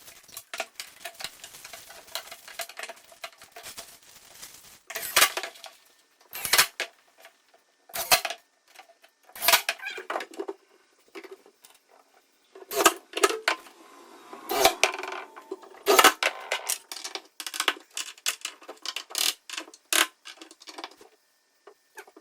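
Installation work on kitchen cabinets: irregular knocks, clacks and a rattling clatter of hard parts and tools being handled, with a loud sharp knock every second or two.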